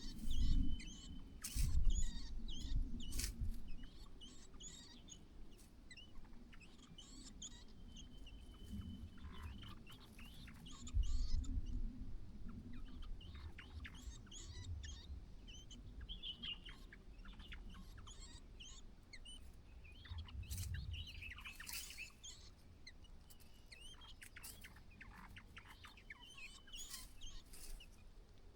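White-browed laughingthrushes calling: many short sharp chirps with a few brief held whistles, scattered throughout. Low thumps and rustling come near the start, about a third of the way in, and again about two thirds in.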